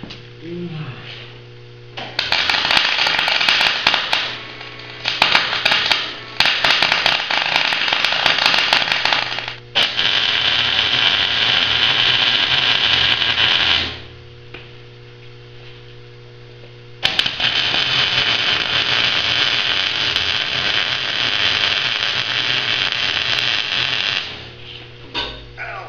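MIG welder laying beads on steel: the hissing, crackling arc runs in several stretches of a few seconds each, the longest about seven seconds near the end, with short pauses between, over a steady electrical hum.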